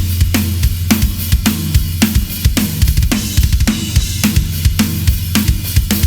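Drum kit played in a steady groove: bass drum, cymbals and hi-hat around a Ludwig Raw Brass 14x6.5 snare with an Evans Onyx batter head, Evans 300 snare-side head and Puresound snare wires, damped with a Snareweight M100, about two strikes a second with short ringing.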